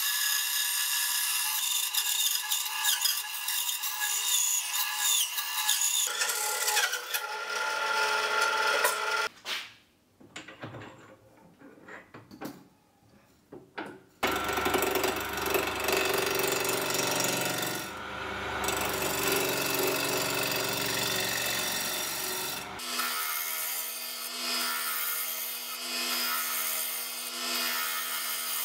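A band saw cutting through a thick wooden block, then a short near-quiet gap. After that comes a wood lathe running with a gouge cutting into the spinning wooden blank, with a steady motor tone near the end.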